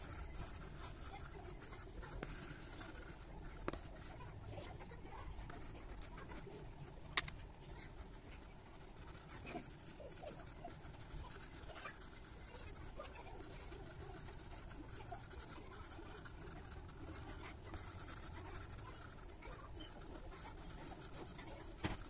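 Pencil drawing on paper clipped to a clipboard: faint scratching over a low steady hum, with a few sharp clicks, the loudest about seven seconds in and another near the end.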